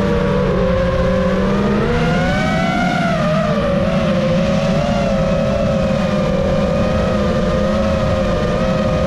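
FPV drone's electric motors and propellers, heard through its onboard camera: a steady whine that rises and falls in pitch with the throttle, over a low rumble of wind on the microphone.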